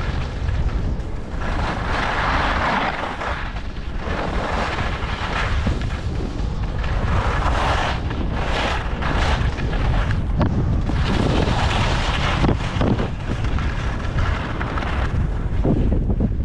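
Wind buffeting a GoPro microphone on a fast ski descent, a constant low rumble, with the skis' edges scraping and hissing over firm groomed snow in repeated surges as the skier turns.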